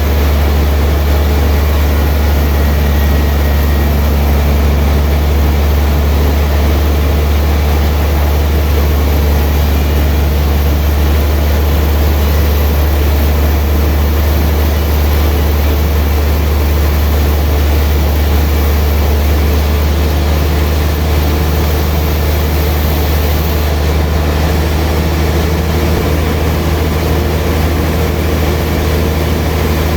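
Sawmill machinery running with a loud, steady low hum that holds unbroken throughout.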